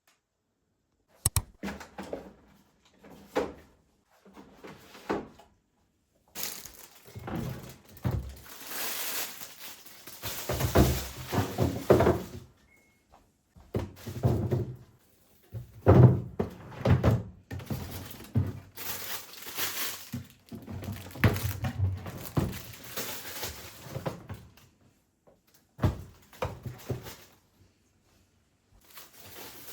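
Objects being handled and set down: irregular knocks and thunks, some sharp, mixed with long stretches of rustling.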